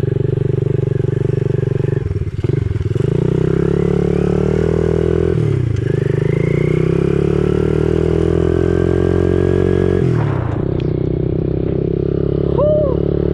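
Dirt bike engine pulling away under throttle. It climbs in pitch and drops back sharply three times, about 2, 5.5 and 10 seconds in.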